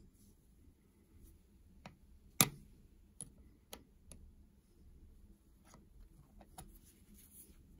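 Scattered sharp clicks and taps of small hard objects being handled, about eight in all, one much louder about two and a half seconds in.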